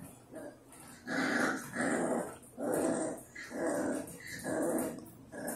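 Seven-week-old puppies growling at each other in play: a string of about six short growls, each about half a second long.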